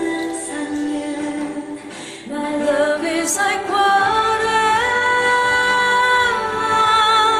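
A woman singing a slow ballad melody, settling into one long held note about four seconds in, with a low steady accompaniment coming in underneath.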